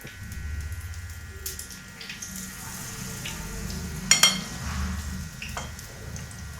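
Battered paneer pieces deep-frying in hot oil, a steady sizzling crackle. A sharp metallic clink sounds a little after four seconds in.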